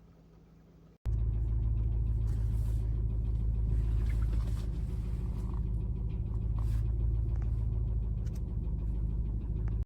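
Steady low rumble of a car driving, heard from inside the cabin: road and engine noise. It starts abruptly about a second in, after near silence.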